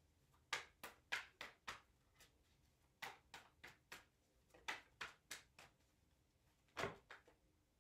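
Tarot cards being shuffled by hand in an overhand shuffle: faint soft clicks and slaps of cards against each other, in short runs, with one louder slap near the end.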